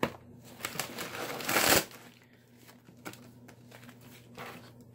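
Bubble wrap and packing paper crinkling and rustling as a wrapped item is unpacked by hand, with one loud burst of crinkling about a second and a half in and fainter rustles after.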